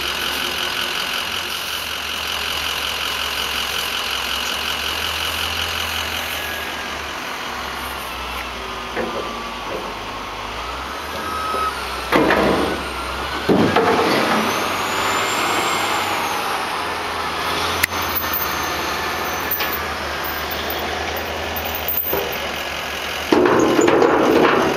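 Light-duty dump truck's engine running steadily while its bed is raised, with loud bursts of noise about halfway through and again near the end.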